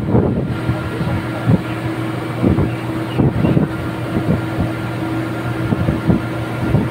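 Drilling rig machinery running with a steady hum, broken by irregular short knocks about a dozen times.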